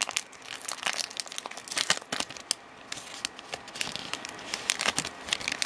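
Foil wrapper of a Pokémon TCG Breakthrough booster pack crinkling and tearing as it is handled and ripped open, a dense run of irregular sharp crackles.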